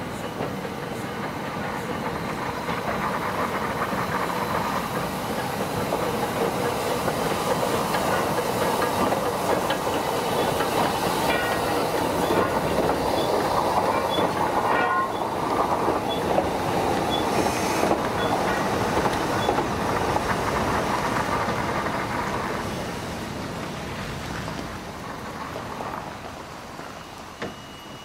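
Ffestiniog Railway narrow-gauge steam train running in past the platform: the locomotive's steam hiss and the clatter of wheels on the rails build to a peak as the engine passes, with a few brief thin squeals from the wheels midway. The sound then dies down as the carriages roll by.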